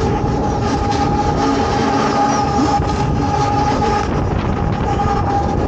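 Rumble and wind rush of a Mondial Shake R5 thrill ride in full motion, heard from a spinning, inverting gondola, with a steady whine held throughout.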